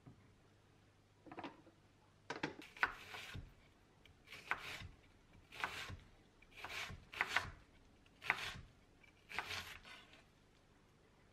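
Chef's knife slicing through an onion onto a wooden cutting board: a series of short crunchy cuts at a slow, uneven pace, roughly one a second.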